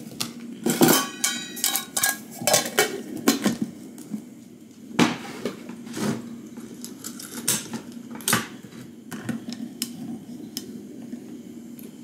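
Metal cookware and utensils clattering and clinking during camp cooking: irregular knocks and scrapes, one brief metallic ring about a second in, over a steady low hum.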